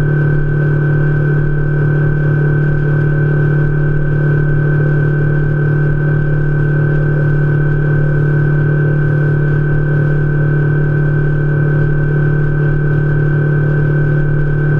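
Outboard motor pushing a Lund fishing boat across the lake at a steady speed: a loud, unchanging drone.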